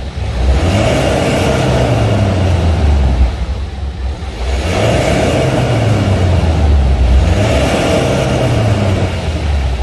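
BMW 320d E90 facelift's 2.0-litre four-cylinder turbodiesel running through a Supersport aftermarket sport exhaust, revved twice from a standstill. The revs climb and are held for a few seconds, fall back to idle about three seconds in, then rise and hold again before dropping near the end.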